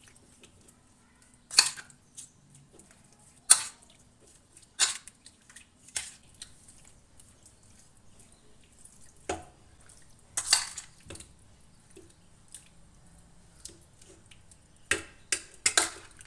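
A spoon clinking and scraping against a stainless steel bowl at irregular intervals while tossing raw fish pieces in a wet spice marinade, with soft wet squelches between the clinks.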